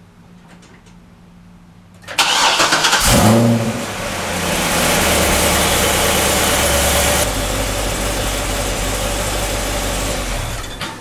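Chevrolet Corvette C6 Z06's 7.0-litre LS7 V8 cranked and started about two seconds in, revving up briefly as it catches, then settling into a steady fast idle that eases down a little about seven seconds in. This is the first start after an oxygen sensor replacement and battery reconnection.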